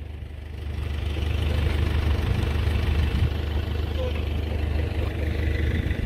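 Tractor's diesel engine idling steadily, with the hiss and rattle of corn seed being poured from a sack into the planter's seed boxes building up during the first second.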